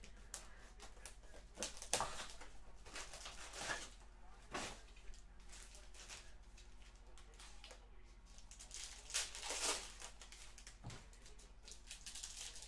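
Short, irregular crinkling and rustling of plastic wrapping and packaging as a sealed hobby box of trading cards is handled and opened, over a low steady hum.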